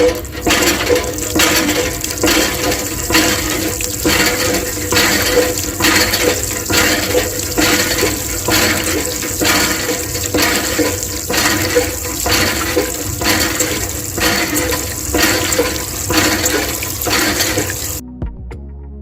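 Water gushing and splashing in regular pulses, about two a second, as from a miniature hand water pump being worked; it stops about a second before the end.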